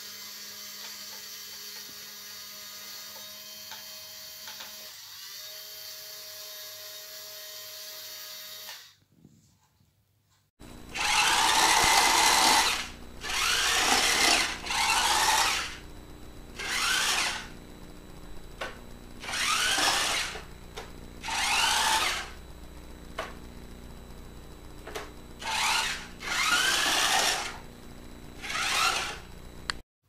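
Small electric gear motors of a Dickie Toys RC forklift whirring in about nine short bursts, each rising in pitch as the motor spins up, over a steady low hum. For about the first nine seconds only a steady electrical hum is heard, then it cuts off.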